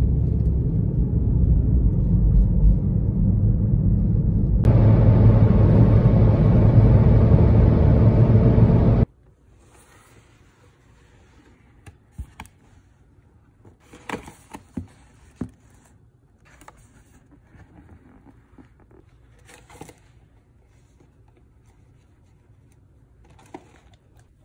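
Road and engine rumble inside a moving car, growing louder and brighter about five seconds in, cut off abruptly after about nine seconds. Then a quiet room with scattered soft scrapes and taps from hands handling a paperboard pastry box.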